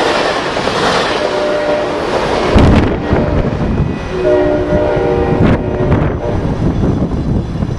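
Amtrak Pacific Surfliner passenger train rushing past at speed, its bilevel cars' wheels rolling over the rails, with a loud gust of rumble as the last car clears about two and a half seconds in. The rolling noise then fades as the train pulls away, and from about four seconds in the train's horn sounds in the distance.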